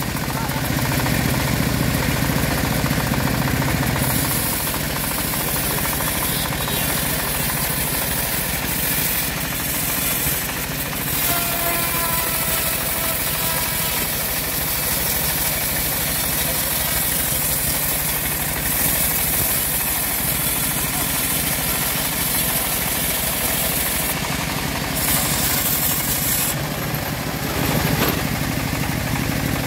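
Homemade bandsaw mill sawing lengthwise through a large acacia log: a steady drone of the mill's engine and blade running through the cut.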